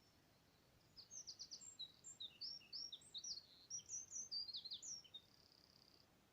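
A songbird singing one quick, varied phrase of high chirps and slurred notes for about four seconds, starting about a second in and ending in a short, thin trill.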